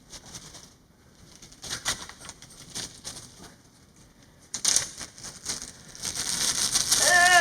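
Soft rustling and scattered light clicks of puppets and props being handled, growing into a louder rustle near the end, where a brief vocal sound also begins.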